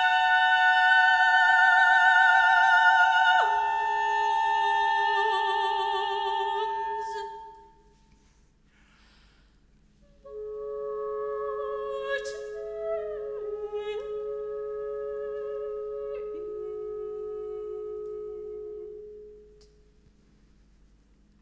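A soprano voice and a clarinet hold long notes together, the voice with a wavy vibrato. The notes fade out about eight seconds in. After a short silence, a new pair of held notes comes in with small pitch slides and fades out near the end.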